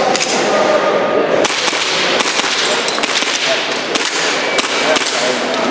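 A quick string of sharp shots from an airsoft pistol, some in close pairs, beginning about a second and a half in.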